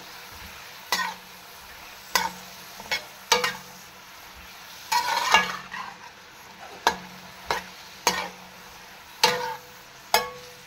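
A metal spatula scraping and knocking against a metal pan as peas and carrot strips are stirred and fried in hot ghee, about ten strokes at uneven intervals with a longer scrape about halfway through. A faint steady sizzle runs underneath.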